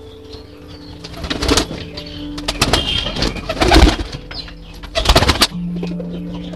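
Domestic pigeons cooing in several short outbursts over steady ambient background music.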